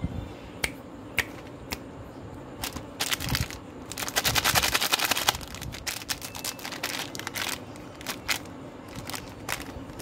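Plastic candy wrapper crinkling and crackling in the hands, with scattered sharp clicks and a dense run of crackling about three to five seconds in.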